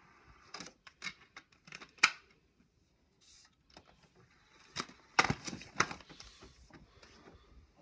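Sharp plastic clicks and clacks of a DVD and its plastic case being handled at an open DVD player tray: a few single clicks, then a louder clatter about five seconds in.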